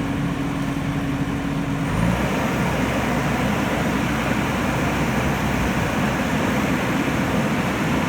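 Diesel engine of a JCB backhoe loader running, steady at first, then heavier and noisier about two seconds in, when a faint high whine also starts.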